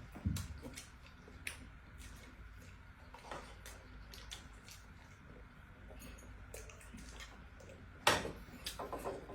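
Eating sounds: scattered clicks and knocks of spoons against bowls, with soft wet squishing. The loudest knock comes about eight seconds in.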